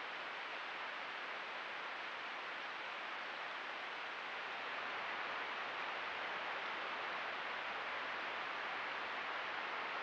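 Steady rushing of flowing creek water, slightly louder from about halfway, with a faint steady high tone above it.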